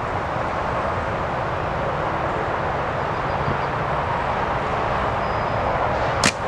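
Heavy wind noise buffeting the microphone, a steady rush. Near the end, one sharp snap cuts through it.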